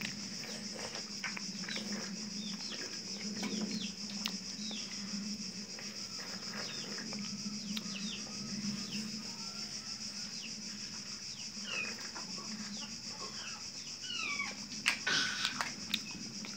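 Birds chirping, short falling chirps scattered throughout, with a louder flurry of chirps about fifteen seconds in, over a steady low hum.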